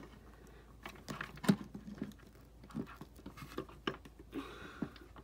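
Faint, scattered clicks and taps of a plastic Indoraptor action figure being handled and posed on a tabletop, its joints and feet knocking lightly, with one slightly louder tap about a second and a half in.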